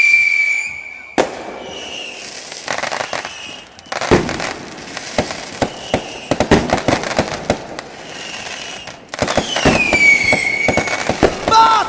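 Fireworks going off: a whistle gliding down in pitch, a sharp bang about a second in, then rapid cracks and pops, and a second falling whistle near the end.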